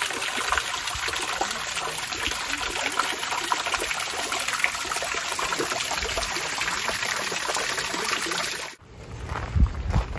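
Thin streams of water falling and splashing over rocks, a steady rush of trickling. It cuts off suddenly near the end, leaving quieter outdoor sound with a few low thumps.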